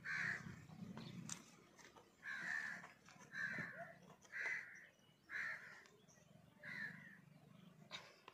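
A crow cawing repeatedly, about six harsh caws roughly a second apart.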